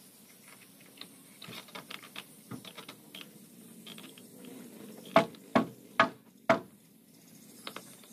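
Knocks on the timber planks of a wooden boat being built: faint scattered taps and clicks, then four sharp loud knocks about half a second apart a little past the middle, and a couple of light clicks near the end.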